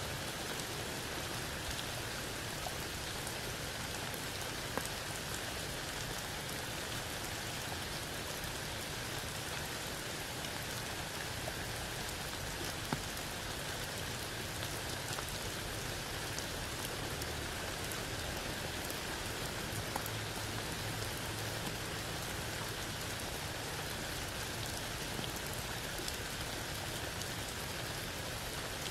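Steady rain falling through a tree's leaves onto wet ground and a puddle, an even hiss with a few louder single drops now and then.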